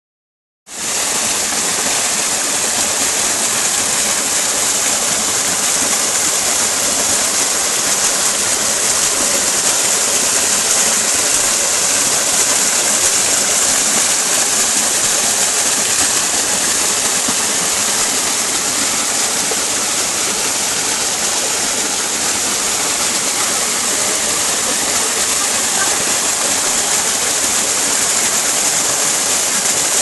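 Small rocky-stream waterfall, swollen after rain, pouring over boulders and splashing into a shallow pool: a steady rushing hiss, strongest in the high register.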